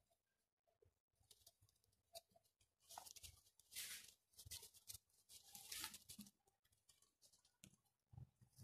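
Faint rustling and crackling of dry straw as two Gultair puppies scuffle through it, in a few short bursts about three to four seconds in and again around six seconds.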